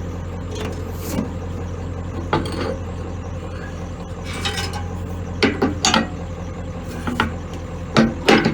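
Combine harvester running steadily with a low drone, broken by several short, irregular knocks and rattles.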